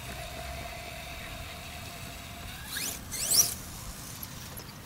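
Lightning Stadium Pro RC truck's 1700kv brushless motor on a 6S LiPo: a faint steady whine, then about three seconds in a few quick rising whines as it accelerates in bursts.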